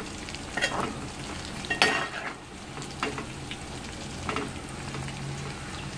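Pieces of goat fat frying on a slow flame in their own rendered fat, a steady sizzle, with a metal spoon scraping and knocking against the metal pot several times as they are stirred.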